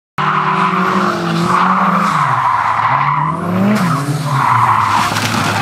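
Car engine revving, its pitch holding, dropping and climbing again, with loud tyre squeal in stretches as the car slides.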